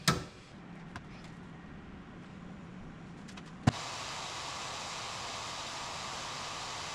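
Thermal vacuum-forming machine running: a click and a low steady hum, then a sharp click about three and a half seconds in and a steady, louder rushing noise.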